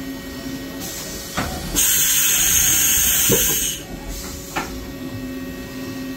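Compressed-air blast hissing inside a Haas UMC-750 5-axis CNC machining center: a short hiss, then a loud one lasting about two seconds that stops sharply, and a brief hiss after it, with a few clunks from the machine and a steady hum beneath.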